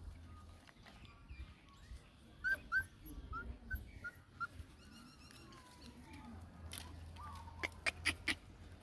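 Puppy whimpering: a run of about six short, high whimpers, then one longer falling whine. A few sharp clicks near the end.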